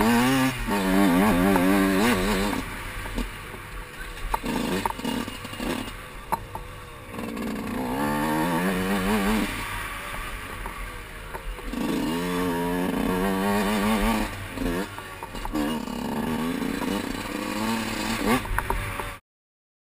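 Motocross dirt bike engine being ridden hard, its pitch climbing and dropping with the throttle in four or five strong surges with quieter running between. The sound cuts off suddenly just before the end.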